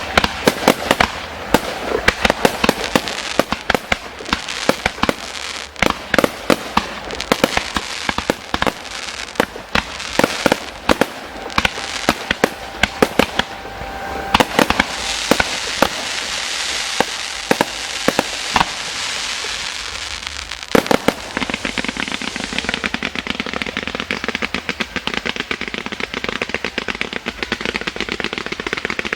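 Fireworks display: many sharp bangs of shells bursting overhead, mixed with crackling. Midway there is a spell of dense hissing crackle, and near the end a fast, rattling run of crackles.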